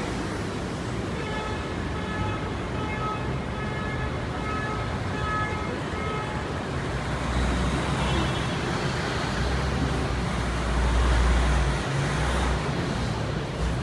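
City avenue traffic noise: road vehicles passing, with a heavy vehicle's deep engine rumble growing in the second half. A string of short, evenly repeated electronic beeps sounds through the first half.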